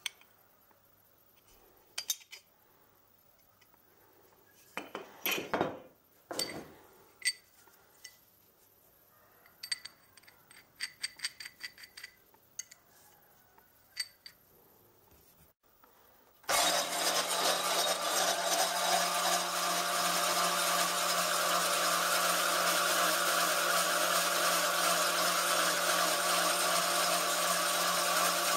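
Scattered light metallic clinks and taps as steel pieces and a steel square are handled on a metal bench. Just past halfway, a horizontal metal-cutting band saw runs steadily with a constant low hum, its blade cutting through a square steel tube.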